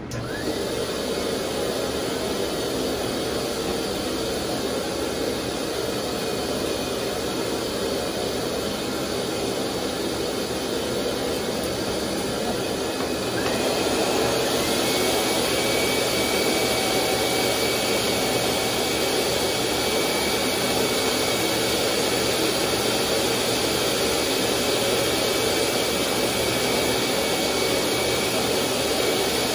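High-velocity pet dryer blower switching on and running with a steady noise of rushing air. About halfway through it gets louder and a thin, steady high whistle joins in.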